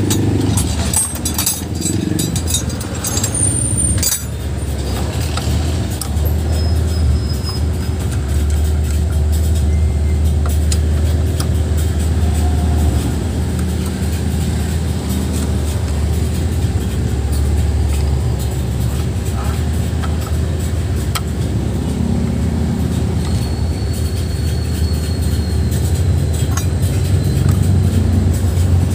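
Steady low rumble, like a motor running nearby, with light metallic clinks of hand tools in the first few seconds, as the cooling fan is worked off the scooter's magneto flywheel.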